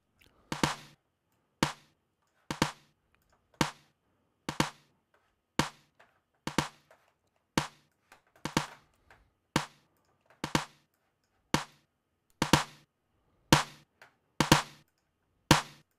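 Isolated snare drum track from a mix playing on its own, one sharp hit about every second with an occasional quick double hit, each dying away fast. The hits run through a transient envelope shaper whose release setting is being changed.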